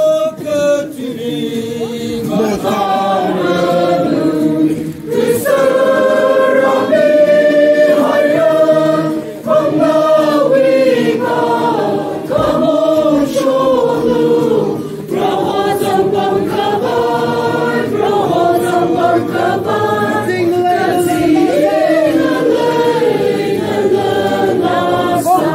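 A choir singing together in long held phrases, with brief breaks between them.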